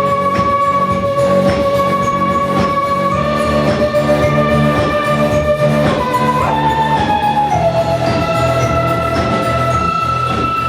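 Live band music in an instrumental passage: a lead instrument holds long notes, stepping and sliding from one pitch to the next, over the band's accompaniment.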